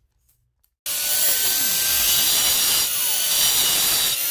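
Angle grinder with a diamond blade running at full speed, grinding out a gouge in an epoxy flake floor coating to prepare it for repair. It comes in abruptly about a second in, and its pitch sags several times as the blade bites.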